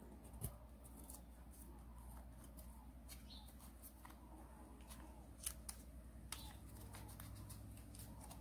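Faint rustling and crinkling of origami paper being folded and creased by hand, with a few sharp little clicks, the loudest about half a second in and about five and a half seconds in, over a steady low hum.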